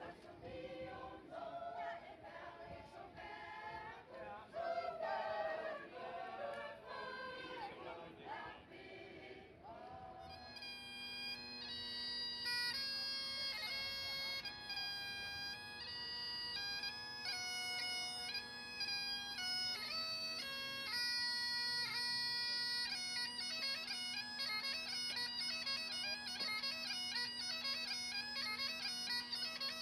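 A choir singing for about the first ten seconds, then Highland bagpipes playing a tune: a steady drone under the chanter's quickly changing notes.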